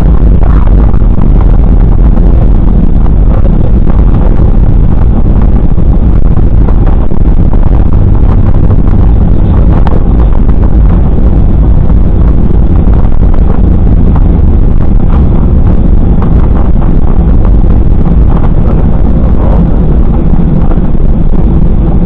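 Airliner engines and airframe at takeoff, heard from inside the cabin as a loud, steady rumble, heaviest at the low end.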